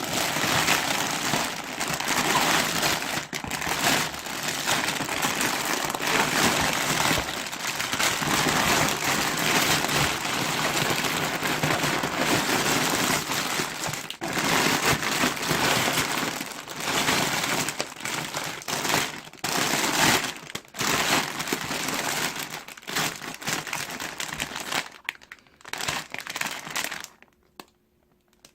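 Crinkling plastic packaging being handled and crumpled, a dense crackle that keeps going for most of the time and stops shortly before the end.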